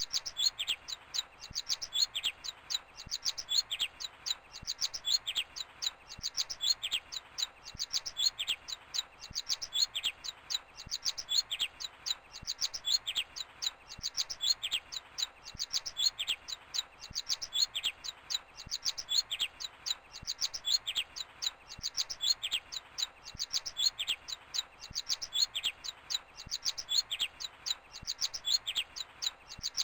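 Nestling robins begging for food: high, thin chirps crowded into quick clusters that repeat about once a second, over and over.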